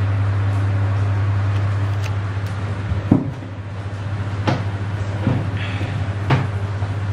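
Panasonic FV-25TGU2 10-inch six-blade ceiling exhaust fan running, a steady hum under a rush of air, dipping a little about three seconds in. Four short knocks sound over it, about a second apart, in the second half.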